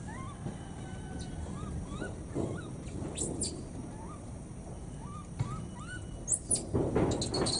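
Rhesus macaques calling: faint short rising coos repeated about once a second, with a few high, sharp chirps. The calling and rustling grow louder near the end.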